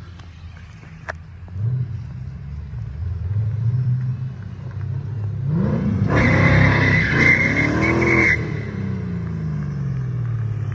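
Ford Mustang V8 revving up in a drift attempt. Tyres screech for about two seconds in the middle, over the loudest stretch of revving, and then the revs fall away.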